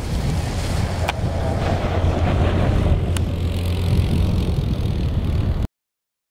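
Zero-emission snowmobile running over the snow while towing a second snowmobile as its drag load, with heavy wind on the microphone giving a steady low rumble. Two sharp clicks come through, and the sound cuts off suddenly near the end.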